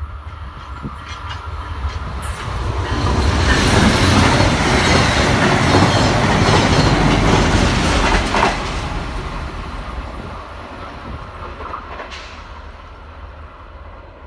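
Via Rail passenger train, hauled by an F40PH diesel locomotive, passing at speed: a rumble with wheels clattering over the rail joints. It builds over the first few seconds, is loudest from about four to eight seconds in, then fades as the train moves away.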